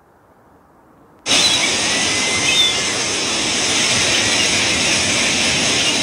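A loud, steady rush of dense noise starts suddenly about a second in, over a faint hiss, with a few short whistle-like glides in it.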